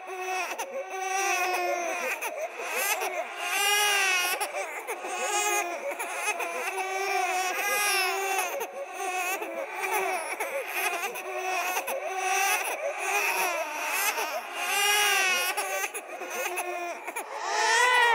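Several babies crying at once, their wails overlapping continuously, each cry arching up and falling in pitch, layered into a horror sound effect of ghostly babies crying.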